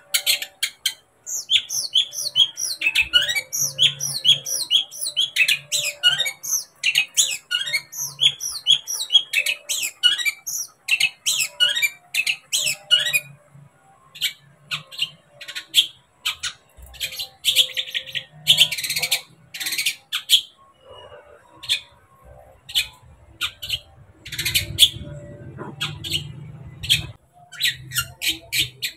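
Long-tailed shrike (cendet) singing: a fast run of sharp, downward-sweeping chirps for the first dozen seconds, then scattered short, sharp calls with a dense chattering burst a little past the middle.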